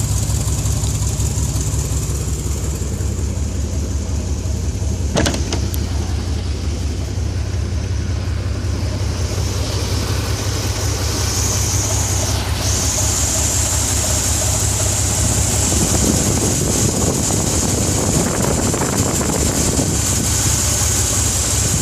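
1969 Corvette L46's 350 cubic-inch small-block V8 idling steadily, with a single sharp click about five seconds in.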